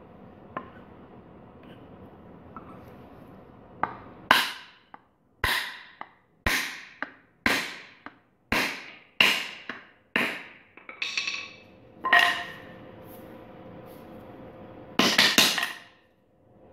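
Hammer blows on a wooden block, driving the new wooden handle into a ball peen hammer head to seat it: about ten sharp strikes roughly a second apart, each with a short ring, then a few quick knocks near the end.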